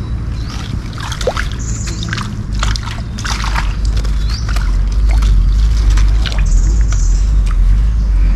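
Wet moss bait being squeezed and worked by hand, with a run of short sloshing, dripping strokes in the first half, over a steady low rumble that grows louder after the middle.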